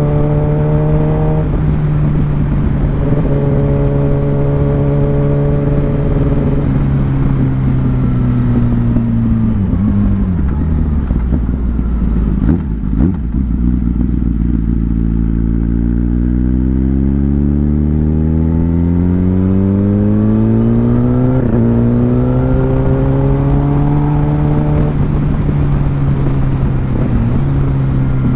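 Kawasaki ZX-10R's inline-four engine on the road: running steadily, then easing off so its pitch falls almost to idle about halfway through, then accelerating with a rising pitch that drops suddenly twice near the end as it shifts up.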